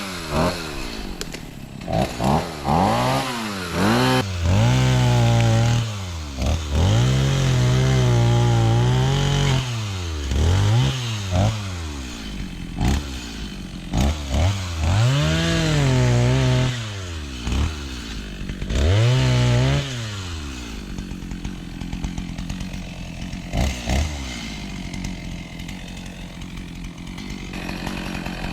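Stihl chainsaw revving to full throttle in repeated short bursts, cutting tree limbs and dropping back to idle between cuts; from about twenty seconds in it idles steadily.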